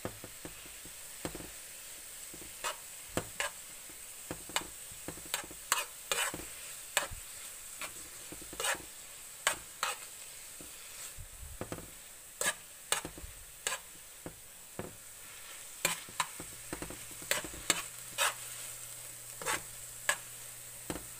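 Instant noodles sizzling in a nonstick frying pan with a little water, while a utensil stirs them and taps and scrapes against the pan in irregular sharp clicks.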